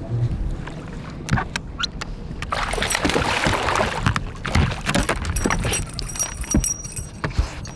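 A hooked smallmouth bass thrashes and splashes at the surface beside the boat for a couple of seconds. It is then swung aboard, with knocks and a metallic jingling near the end.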